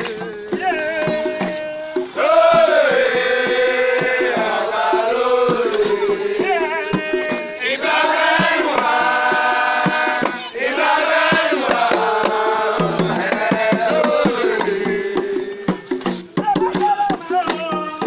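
A group of men singing a chant together in long held and sliding phrases, over hand drums.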